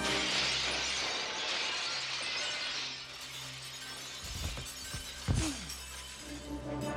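A large glass pane shatters as a body crashes through it, with a loud cascade of breaking and falling glass for about three seconds. Then come two heavy thuds, about four and five seconds in, over orchestral score music.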